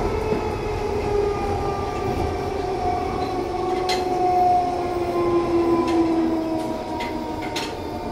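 London Underground 1972 Stock tube car standing at a platform: its onboard equipment hums steadily, several tones sinking slowly in pitch, with a few faint clicks.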